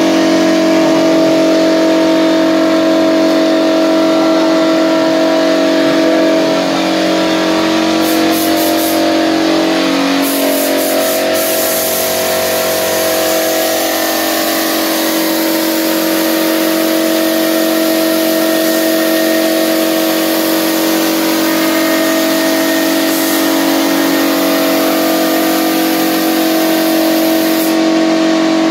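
Compressed-air spray gun hissing as it sprays thinned wood stain, over the steady hum of the air compressor that feeds it. The sound switches on just before and holds steady.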